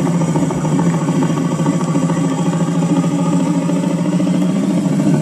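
A steady, loud buzzing drone held at one pitch, with a low hum and many overtones above it, unchanging throughout.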